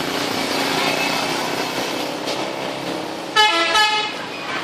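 A multi-tone 'telolet' musical horn sounds one short, loud chord-like blast about three-quarters of the way in, over the steady noise of road traffic.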